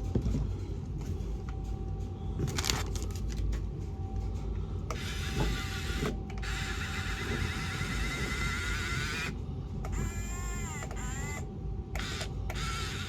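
Small electric gear motors of a toy RC excavator whirring as it is worked: one long run of about four seconds, then a shorter run whose pitch dips and rises again.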